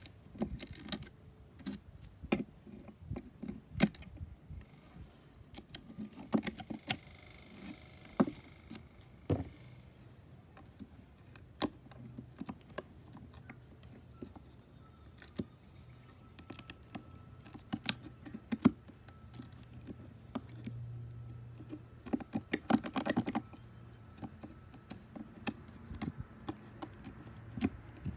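Kitchen knife chipping and scraping waste wood out of a sawn groove in a board: irregular sharp clicks and scrapes, with a denser run of scraping near the end.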